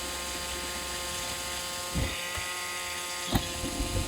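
Roomba robot vacuum running, a steady motor hum, with two short knocks about two seconds and three seconds in.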